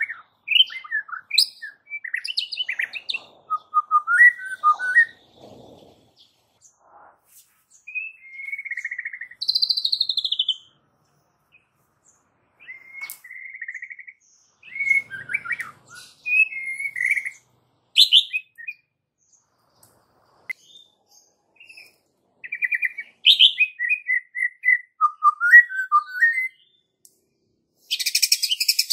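White-rumped shama singing in short bursts: varied clear whistles and quick chattering trills, with pauses of a second or more between phrases, and a louder, harsher burst near the end.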